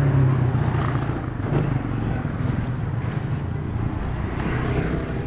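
Roadside traffic: a steady low hum of motor vehicle engines, motorcycles among them, with road noise.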